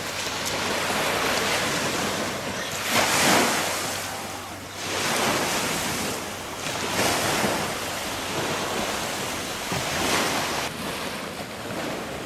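Small waves breaking and washing up a sandy beach, the surf rising and falling every two to three seconds, loudest about three seconds in.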